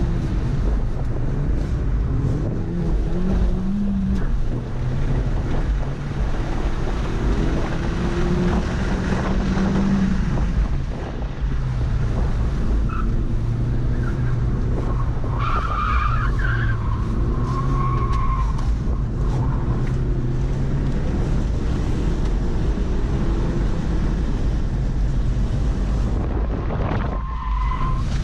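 Car engine revving up and down under hard driving on an autocross run, heard from inside the car with heavy low rumble. Tyres squeal briefly several times as the car slides through turns, mostly past halfway and once more near the end.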